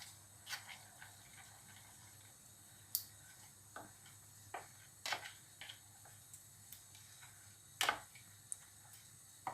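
A spoon stirring a thick mixture of honey, lemon juice and ground ginger in a bowl: faint, irregular clicks of the spoon against the bowl, about ten of them, the clearest about three, five and eight seconds in.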